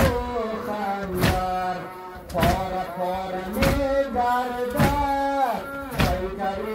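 A noha, a Shia lament, is chanted while a group of mourners beats their chests in unison: a sharp collective slap lands about every 1.2 seconds under the singing.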